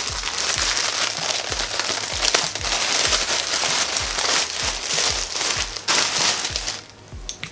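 Clear plastic garment bag crinkling and crackling as it is crumpled and pulled open by hand, stopping shortly before the end.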